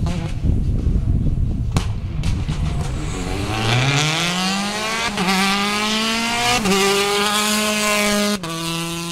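Rally car approaching at full throttle, its engine note climbing and breaking twice as it shifts up through the gears. The pitch drops sharply as it passes close by.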